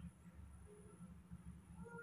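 Near silence with a faint low room rumble and a couple of faint, short squeaks from a baby monkey near the end.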